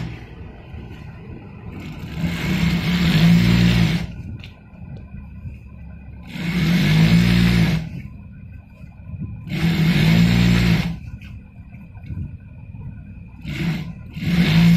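Siruba industrial sewing machine stitching in short runs: the motor speeds up, sews for a second or two and slows to a stop, four times, with a brief blip near the end. A steady motor hum continues between the runs.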